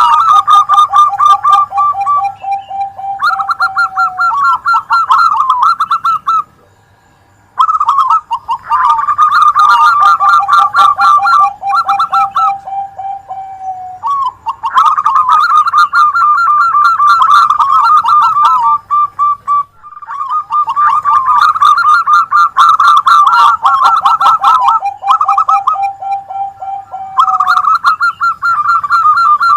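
Zebra doves (perkutut) cooing in overlapping, rapidly repeated phrases, several songs layered at once, with a brief pause about six and a half seconds in. This is a combined perkutut song recording used as a lure to set caged birds singing.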